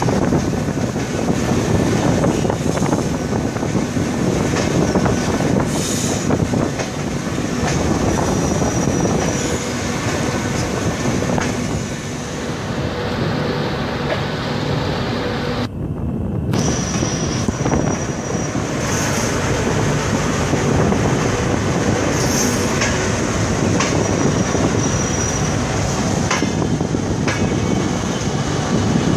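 Passenger train coaches rolling over rails, a steady rumble with clickety-clack from the wheels and several thin, high wheel squeals as the train runs over pointwork into a station, heard from the moving coach.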